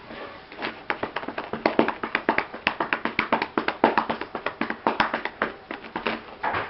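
A hand rapidly patting a cat's back and rump: a fast run of soft slaps on fur, several a second, starting about half a second in.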